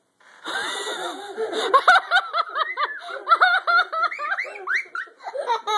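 Children laughing and squealing, several high voices in short rapid bursts, starting about half a second in.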